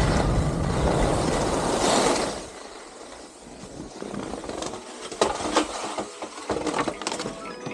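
Skis sliding on snow with wind buffeting the helmet-mounted microphone, a loud rumbling hiss that drops away about two seconds in as the skier slows. Then a quieter hiss with scattered clicks and knocks.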